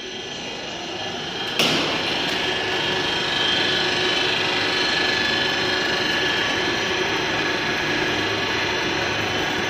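Roll forming machine running, a steady mechanical din with a whine of several held tones that grows louder over the first few seconds. A single sharp bang, the loudest sound, comes about a second and a half in.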